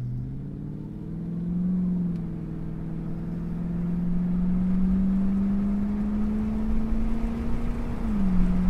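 Ford 5.0-litre Windsor V8 heard from inside the cabin, pulling the car up to speed. Its note climbs steadily and dips twice as the automatic gearbox shifts up, about two seconds in and again near the end, over low road rumble.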